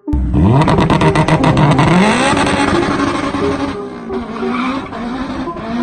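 Honda Civic Type R (EP3) engine revving hard as the car accelerates away. The revs climb, drop at a gear change about two seconds in, climb again, then hold high.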